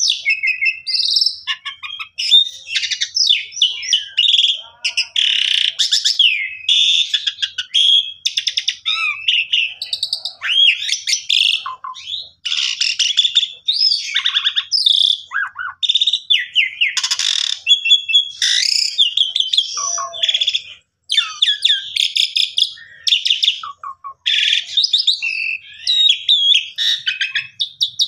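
Asian pied starling (jalak suren) singing a long, varied song: whistled notes that slide up and down mixed with fast trills and harsh chattering, with only brief pauses.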